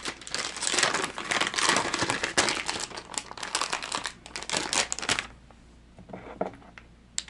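Plastic soft-bait package crinkling as it is handled in the hands. The crinkling stops about five seconds in, followed by a couple of faint taps.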